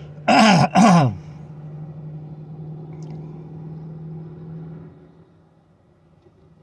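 A man gives two loud groans, each falling in pitch, about half a second in. A steady low hum runs in the truck cab and drops away about five seconds in.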